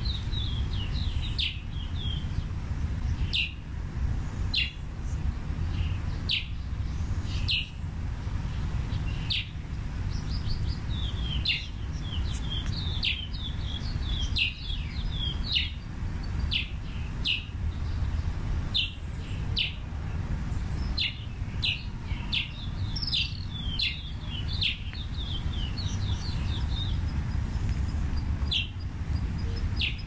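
Small birds chirping: many short, sharp high chirps, with quick twittering runs now and then, over a steady low rumble.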